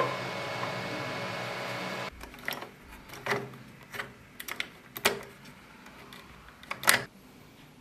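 A steady hum for the first two seconds, then the plastic gears and cam of a hand-cranked 3D-printed polar bear and seal automaton giving irregular sharp clicks and clacks, about six of them, the loudest near the end.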